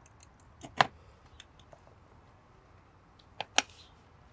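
A handful of sharp clicks and taps of metal multimeter probe tips against the terminals of a cooling-fan resistor, the loudest a little under a second in and two close together about three and a half seconds in.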